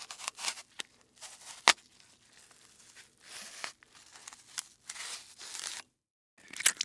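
Crinkling and tearing handling noise in irregular bursts, with a few sharp clicks, the loudest about a second and a half in; the sound drops out completely for a moment near the end.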